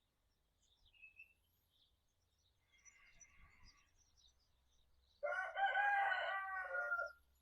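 A single loud bird call about two seconds long, starting a little past the middle, with faint short chirps before it.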